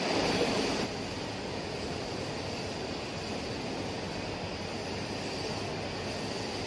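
Wide-format inkjet printer running as it prints: a steady mechanical noise from its fans and moving print-head carriage, a little louder in the first second.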